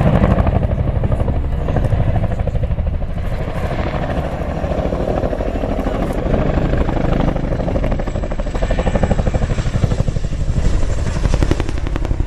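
Boeing CH-47 Chinook tandem-rotor helicopter in flight, its rotor blades beating loudly in a fast, steady pulse.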